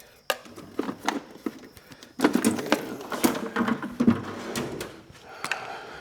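Irregular knocks, clicks and clatter of objects being moved and handled in a workshop, busiest from about two to four seconds in.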